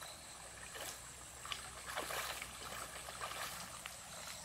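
Shallow stream trickling, with soft splashes of rubber boots wading through the water, several in a row about two seconds in.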